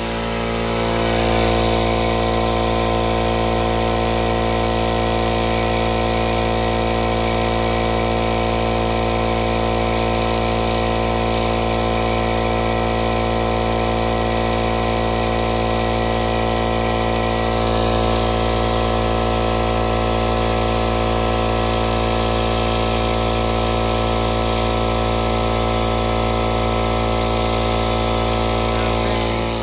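Central Pneumatic 21-gallon 2.5 HP air compressor running steadily and noisily, its pump filling the tank with freshly replaced reed valves fitted; it is building pressure toward 50 PSI, past the 30–35 PSI where the broken reeds had stalled it.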